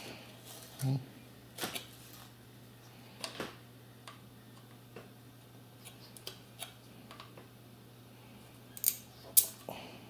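Small clicks and taps from a circuit board being handled while a soldering iron desolders a capacitor, the two sharpest clicks near the end, over a faint steady low hum.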